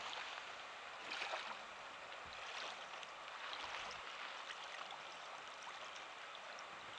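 Small waves lapping at a reservoir shore: a steady soft wash that swells twice, with a few faint ticks.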